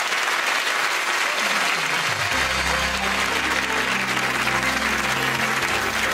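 Studio audience applauding throughout. About two seconds in, the show's opening theme music comes in with a low falling swoop and then a steady bass line under the applause.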